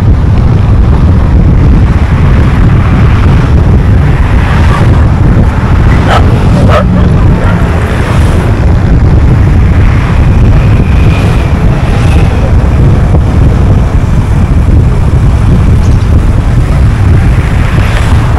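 Car driving at road speed: a steady, loud low rumble of road and wind noise, with two sharp clicks a little past six seconds in.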